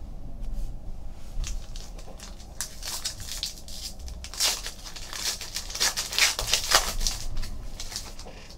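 Foil trading-card pack wrapper being torn open by hand and crinkling as the cards are pulled out: a run of irregular crackly rustles, loudest a little past halfway.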